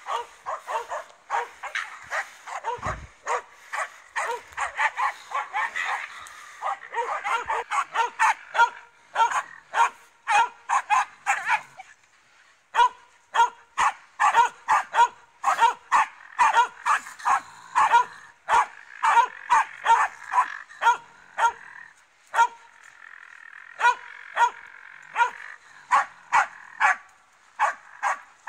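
Finnish Spitz barking in a rapid, repeated string of short sharp barks, about two to three a second, at a raccoon dog it is holding at bay. The barking breaks off briefly about twelve seconds in and thins out near the end.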